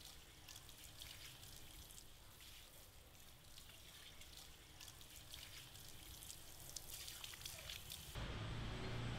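Faint trickling and splashing of water from a handheld shower sprayer running over a face and hair into a shampoo basin, with many small irregular drips. About eight seconds in, a louder low hum takes over.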